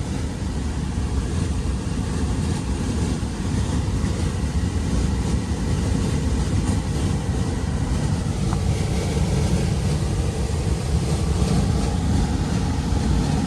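Steady low rumble of a heat pump air handler's blower running and moving air.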